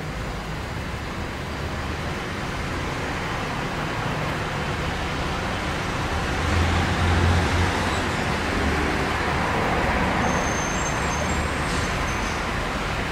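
Road traffic noise, a passing vehicle swelling louder in the middle and easing off over a steady low hum. A few faint short high-pitched tones come near the end.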